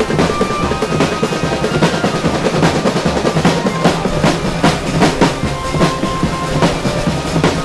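Marching percussion corps playing: marching bass drums, multi-tenor drums and snares beaten together in a dense, steady rhythm.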